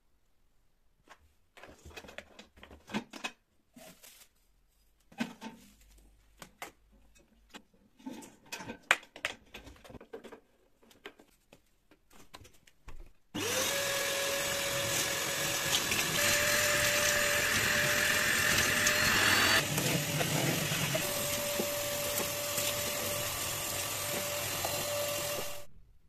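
Scattered clicks and knocks of the ash vacuum being handled, then about halfway through the Stayer ASC-20 ash vacuum's motor switches on and runs with a steady whine while its metal nozzle sucks up wood ash from a fireplace grate. It switches off just before the end.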